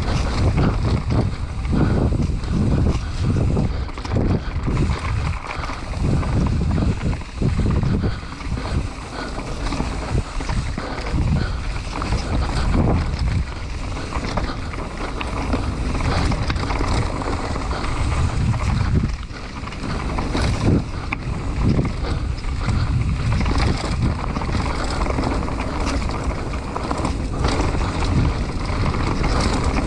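Wind rushing over the microphone of a mountain bike descending a rough enduro trail, with the constant rattle and knocks of the bike and its tyres on the dirt.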